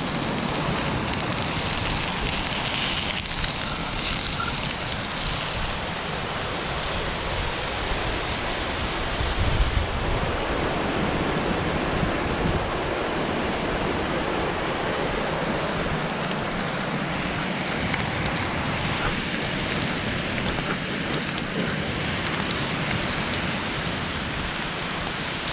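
Dry-aged ribeye searing in a very hot cast iron skillet: a steady, dense sizzle of fat and moisture spitting. The highest part of the hiss thins a little about ten seconds in.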